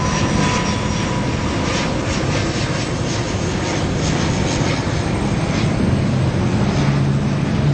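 Steady engine drone and road noise from a large vehicle, likely a bus, running close by. No horn is heard.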